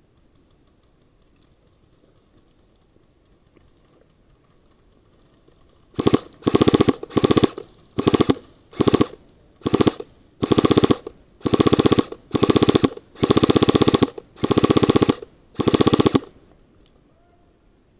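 An airsoft rifle firing about a dozen short bursts on full auto, each a rapid rattle of shots, starting about six seconds in and stopping about two seconds before the end.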